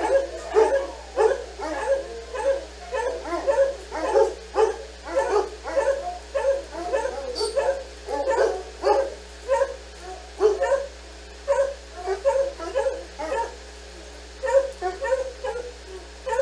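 Dogs baying: a rapid run of short, yelping howl-barks, about two or three a second, led by a black-and-tan dog with its head thrown back. The calls thin out over the last few seconds.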